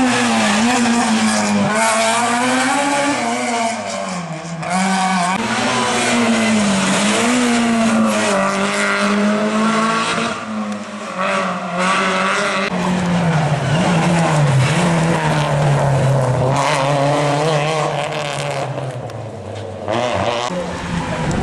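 Rally car engines revving hard and dropping back through repeated gear changes as the cars brake and accelerate through a chicane, several cars passing one after another.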